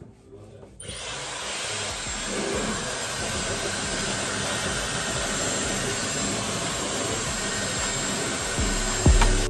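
Handheld hair dryer switched on about a second in, blowing with a steady rush of air and a faint high motor whine.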